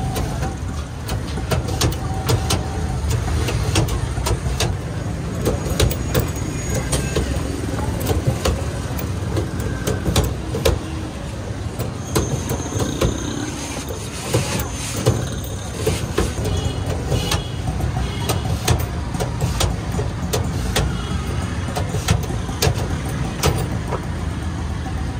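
Steady street traffic rumble with engines running, with frequent short scraping clicks of a hand peeler stripping skins off potatoes.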